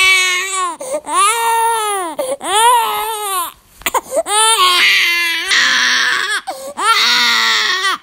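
Infant crying hard: a string of long wails, each rising and then falling in pitch, broken by quick catches of breath between them.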